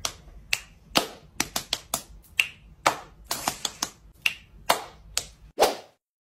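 A quick, uneven run of sharp finger snaps and hand claps, about fifteen in five seconds, ending with a louder, fuller clap just before they stop.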